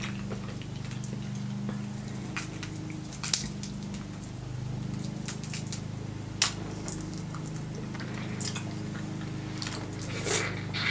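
Cooked snow crab leg shells snapped and picked apart by hand: a few sharp cracks, the clearest about three seconds and six and a half seconds in, then wet mouth sounds of eating the meat near the end. A steady low hum runs underneath.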